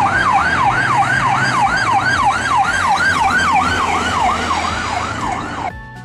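Ambulance siren in yelp mode: a quick rising sweep repeated about three times a second, over a low vehicle rumble. It cuts off suddenly near the end.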